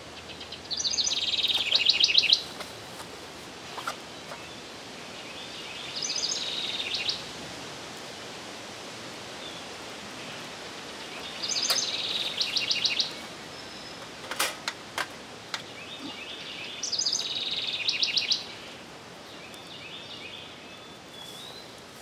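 A songbird singing four short phrases about five seconds apart, each a few high notes running into a rapid trill, over steady outdoor background noise. A few sharp clicks come about two-thirds of the way through.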